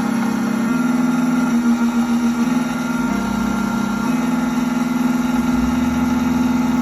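Triton Plus computerized key machine running as it cuts a genuine factory key blade: a steady motor hum that shifts pitch in steps every second or so as the cutter moves along the blade.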